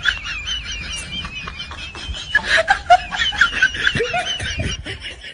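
High-pitched laughter in quick, wavering bursts.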